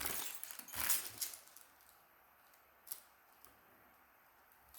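Small thimbles being handled: a burst of rustling and light clicking in the first second and a half, then a single click about three seconds in.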